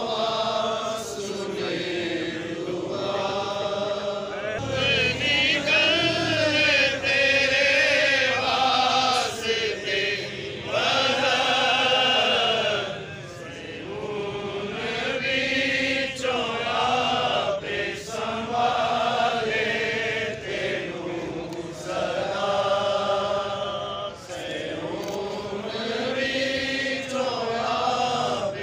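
Protest crowd chanting together in unison, in repeated phrases that rise and fall in pitch.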